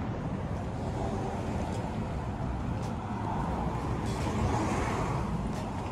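Street ambience: a steady hum of road traffic, swelling slightly about four seconds in.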